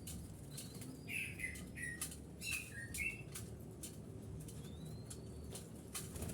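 Birds chirping in short notes with wing flutters and many light clicks and taps, and a thin rising whistle near the end.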